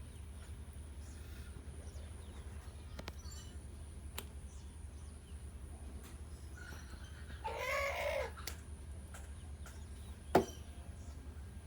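Chickens on a farm, with one louder call of about a second a little past the middle and faint chirps over a steady low rumble. A single sharp click comes near the end and is the loudest sound.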